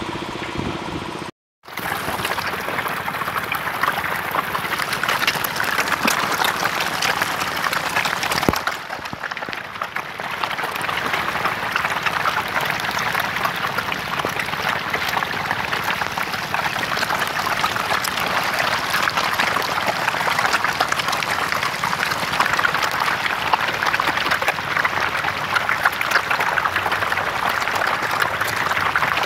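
A dense crowd of hybrid magur catfish thrashing and splashing in shallow water as they feed on pellets: a continuous patter of many small splashes and wet slaps. The sound cuts out for a moment about a second and a half in.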